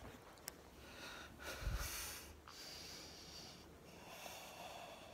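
A person breathing close to the microphone, two long noisy breaths, with a dull low thump about a second and a half in.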